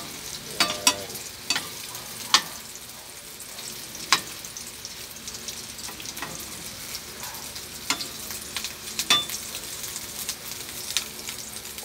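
Chicken nuggets sizzling in shallow oil in a frying pan, a steady hiss. A spatula turning them gives a dozen or so sharp clicks and taps against the pan at irregular moments.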